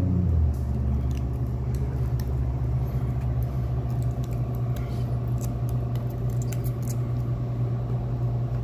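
A steady low machine hum made of several even tones, with faint small clicks scattered over it.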